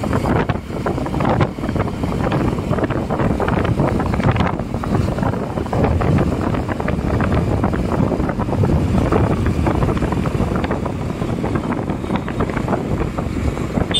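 Heavy wind buffeting the microphone while riding at speed, over a rushing mix of road and engine noise.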